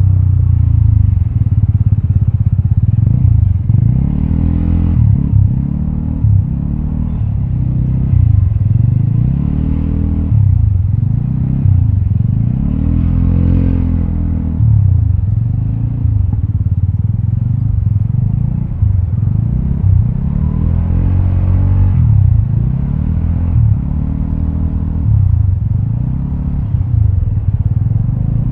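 Vespa automatic scooter's single-cylinder engine through a Prospeed Black CNC aftermarket exhaust, riding along with a deep exhaust note. The pitch rises and falls every few seconds as the throttle is opened and eased off.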